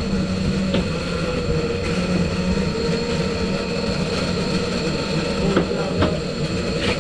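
Boat's outboard engine running steadily with a low drone, with a few short sharp clicks, one about a second in and a couple near the end.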